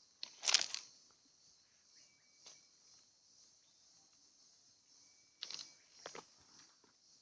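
Steady high-pitched drone of forest insects, with a few sudden rustles or knocks. The loudest knock comes about half a second in, and two more come close together near the end.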